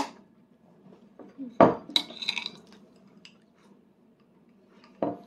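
A small spoon clinking and scraping against a dish, with a short thump about one and a half seconds in, then a quick run of ringing clinks and another knock near the end.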